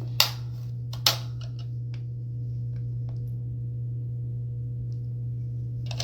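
Two sharp plastic clicks about a second apart, then a few faint ticks, as the hair dryer's removable rear lint filter cap is handled, over a steady low hum.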